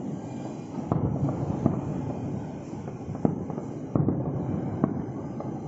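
Distant aerial fireworks shells bursting: about seven sharp bangs at uneven intervals over a steady low rumble.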